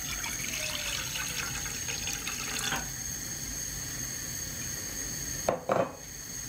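Water poured from a jug into an empty nonstick saucepan, splashing on the pan bottom for almost three seconds and then stopping. About five and a half seconds in come two short knocks.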